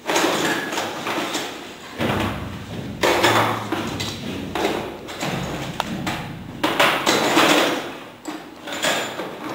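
Repeated metal clanking, rattling and scraping as a heavy flanged steel pipe unit hanging from a chain hoist is handled into place, with a few sharp knocks.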